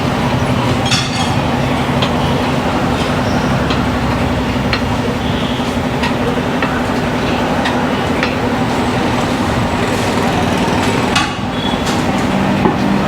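Steady mechanical drone with a low hum and fast pulsing underneath, with scattered short clicks and taps over it.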